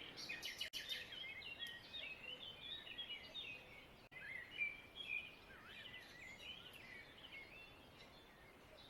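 Faint birdsong: a busy run of many short, quick chirps from small birds, thinning out toward the end.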